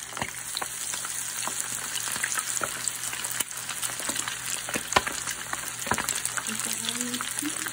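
Red-battered chicken wings deep-frying in hot vegetable oil: a steady sizzling hiss with frequent sharp crackles and pops.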